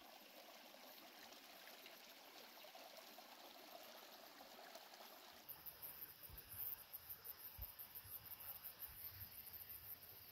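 Faint trickle of a shallow, clear stream running over stones. About five seconds in it gives way to a faint, fast, high-pitched chirring of insects, with a few low thumps.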